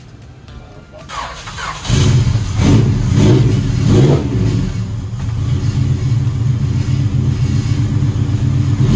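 Honda B20 four-cylinder engine starting about two seconds in, revved several times, then settling into steady running.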